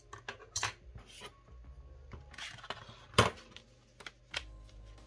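A steel ruler being lifted and set down on a cutting mat, giving a few light metallic clacks, the loudest about three seconds in. Stiff card paper rustles as it is picked up and folded.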